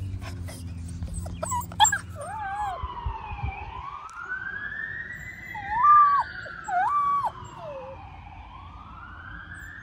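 A distant fire truck siren wails, slowly rising and falling, while a golden retriever puppy howls back at it in several short, high howls, the loudest two near the middle.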